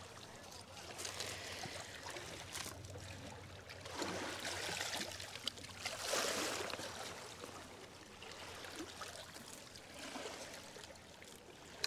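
Small river waves lapping and washing over rocks and pebbles at the water's edge, swelling louder twice in the middle, with a few faint clicks of stones underfoot.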